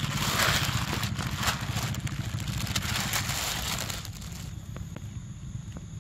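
Wet crackling and crunching of a young macaque biting and chewing a ripe mango close by, which stops about four and a half seconds in. A steady low hum runs underneath.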